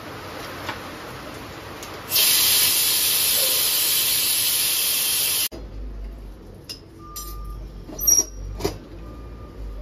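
Pressure cooker venting steam, a loud steady hiss that starts about two seconds in and cuts off abruptly about three seconds later, as the cooker releases pressure once the gas is off after six whistles. Then a few quieter metal clicks and clinks, the loudest a ringing clink about eight seconds in.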